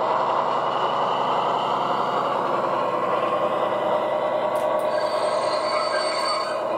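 O gauge model of a DB V100 diesel running along sectional track with goods wagons: the steady running sound of its factory-fitted DCC sound decoder's diesel engine, mixed with the rolling of the wheels on the rails.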